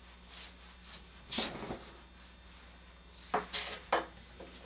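A slicker brush making a few scratchy strokes through a Shih Tzu's long coat, the strongest about a second and a half in. Then two or three sharp knocks about three and a half seconds in, as the brush is set down on the grooming table.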